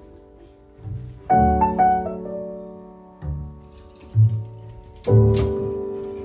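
Background piano music: chords struck about a second in and again near the end, each ringing out and fading, over low bass notes.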